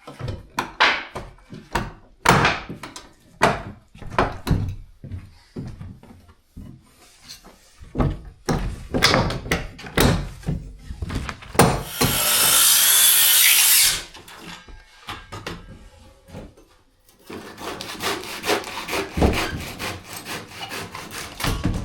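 Old wooden pillar being worked by hand, with irregular scraping, sawing and knocking strokes on the wood. Midway there is a loud, steady rasping burst of about two seconds. Near the end comes a quick run of strokes.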